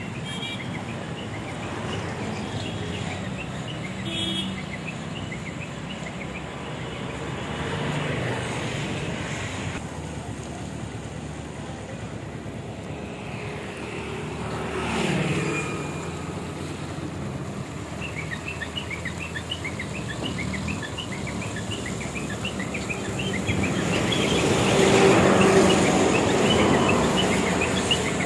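Road traffic passing, the noise swelling as vehicles go by three times, loudest near the end, over steady outdoor background noise. Birds chirp repeatedly in the second half.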